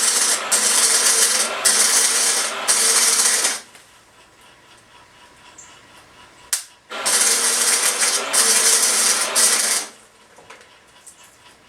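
Arc welding on an Uzi receiver bracket: two runs of loud, steady crackling, the first about four seconds long and the second about three. Each run breaks off briefly a few times as the welder stops and restarts the arc, with a sharp click between the two runs.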